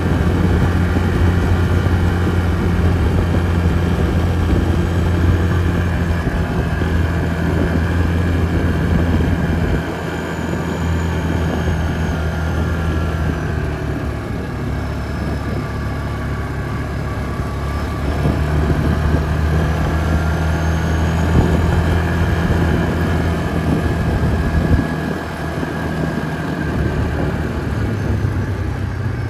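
Yamaha Grizzly 450 ATV's single-cylinder four-stroke engine running while riding, its pitch shifting up and down several times as the throttle changes.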